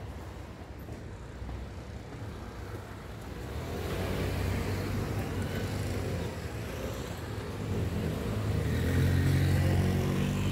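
Street traffic: cars and motor scooters driving past, getting louder about four seconds in, with an engine passing close near the end.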